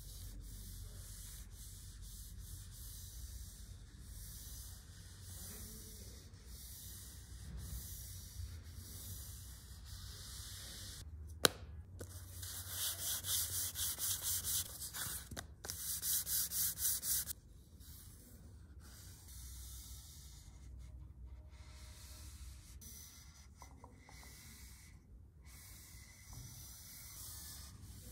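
Sanding: an abrasive rubbing back and forth, with a sharp click about eleven seconds in, then several seconds of louder, rhythmic strokes at about three to four a second before the rubbing goes quieter again.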